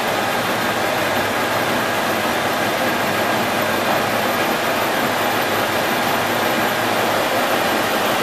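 Stanko 6T12 milling machine running steadily under power feed, its face mill on the horizontal spindle taking a 1 mm cut across cast iron machine ways.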